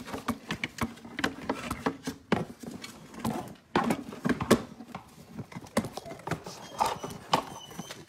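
A dog's nails clicking and paws tapping on a hard floor as it moves about, in quick irregular taps with a few heavier knocks.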